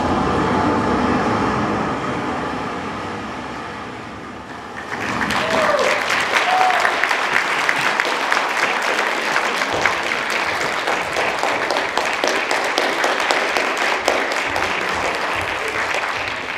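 Stage dance music fading out over the first few seconds, then an audience applauding steadily, with a couple of brief calls from the crowd just after the clapping starts.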